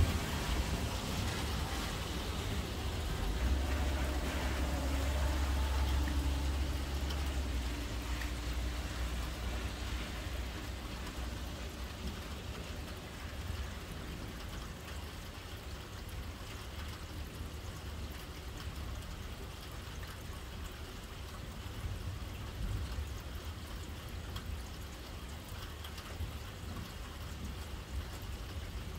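Steady rain falling and pattering on surfaces during a thunderstorm. A deep low rumble rises under it a few seconds in and fades out after a few seconds.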